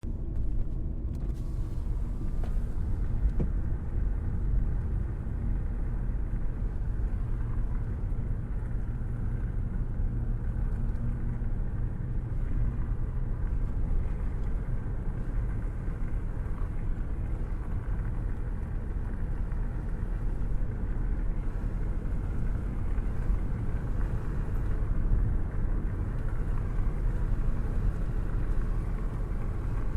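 A car cruising at steady speed, heard with a hand out of the open window: a steady low rumble of wind and road noise.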